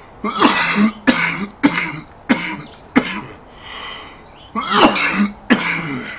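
A man coughing hard, a run of about eight coughs with a long breath drawn in around the middle.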